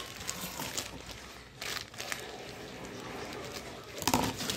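Rustling and crinkling of a plastic courier mailer bag being handled, with a few short crinkles and a louder one near the end.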